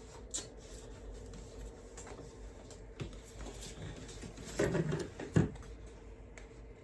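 Paper and craft materials being handled on a tabletop: light rustling and small taps, with a louder rustle and then one sharp tap a little past five seconds in.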